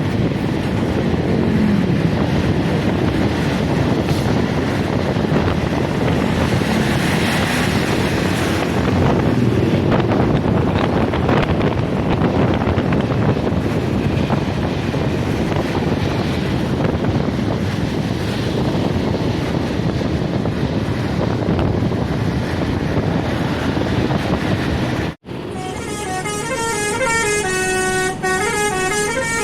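Steady, loud road and wind noise, then after an abrupt cut near the end, a bus's 'basuri' musical air horn playing a tune: several tones sounding together and stepping up and down in pitch.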